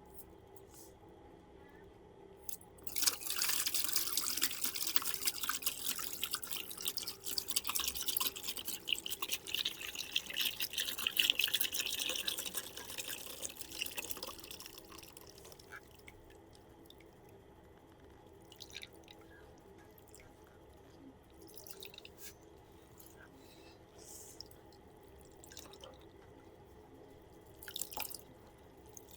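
Balloons being squeezed and rubbed by hand: a dense run of fine crackling, squeaky clicks that starts suddenly about three seconds in and lasts about twelve seconds, then only scattered soft clicks. No pop.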